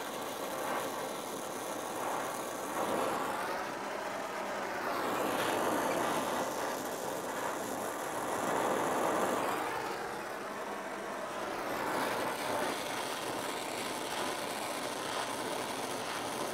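Oxy-fuel torch flame burning with a steady hiss, rising and falling slightly in level, as it heats a forged iron leaf stem to bend it into shape.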